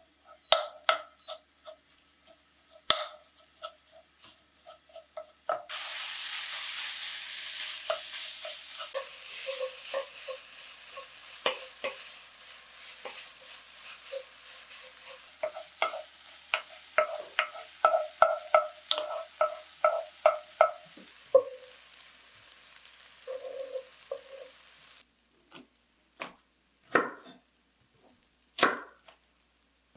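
Food sizzling in a frying pan while a utensil stirs it, with sharp clicks and scrapes of the utensil against the pan. The sizzle starts a few seconds in and cuts off abruptly a few seconds before the end, with separate utensil taps before and after it.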